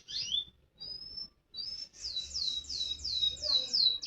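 A canary singing: a few short chirps and a brief whistled note, then from about halfway a run of six quick falling sweeps, each dropping steeply in pitch.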